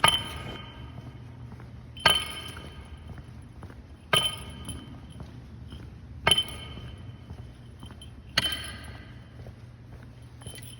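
A small metal bell struck five times, evenly about two seconds apart, each ring dying away over about a second, over a steady low hum.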